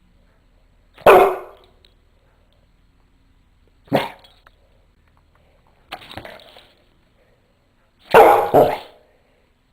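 Rottweiler mix dog barking in single barks a couple of seconds apart, the third one quieter, then two quick barks in a row near the end.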